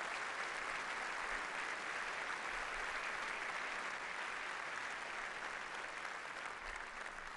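A large concert-hall audience applauding steadily, easing off slightly near the end.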